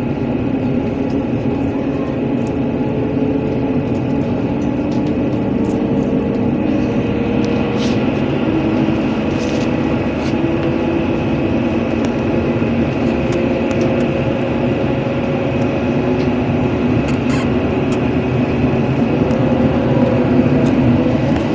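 Inside a NefAZ-5299 city bus under way: steady engine and road noise, with a drone that slowly rises in pitch as the bus gathers speed, and a few light rattles.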